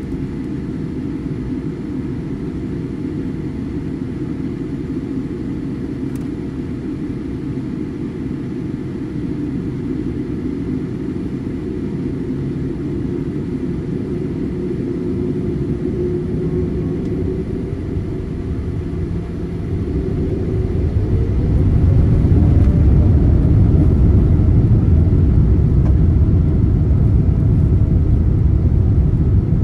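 Boeing 787-8 cabin noise: a steady low rumble while taxiing, then about two-thirds of the way through the engines spool up with a rising whine and the rumble grows louder as takeoff thrust is set.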